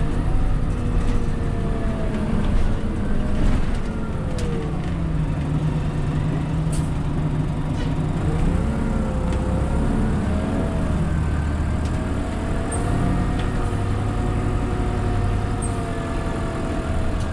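Inside an Orion V diesel transit bus under way: the engine and drivetrain give a steady low rumble. A whine slides up and down in pitch as the bus changes speed, with a few light clicks and rattles from the cabin.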